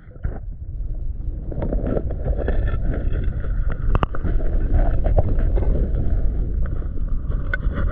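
Creek water rushing, heard muffled and low through an underwater camera, with scattered sharp clicks of gravel and pebbles knocking together as a gloved hand digs in the streambed.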